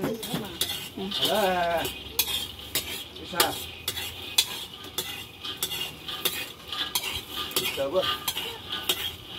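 Metal ladle scraping and clinking against a wok over and over as red beans are stir-roasted over a wood fire, with the beans rattling and a light sizzling hiss underneath.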